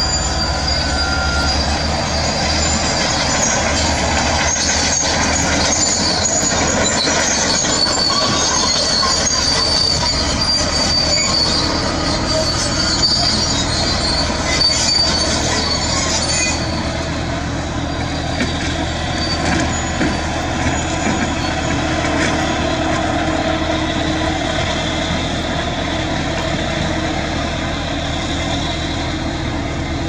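Diesel engine of a Hino 500 dump truck running steadily, with high-pitched metallic squealing for the first half. The squealing stops about halfway through, and the engine sound changes as the tipper bed is raised to dump its load of rock.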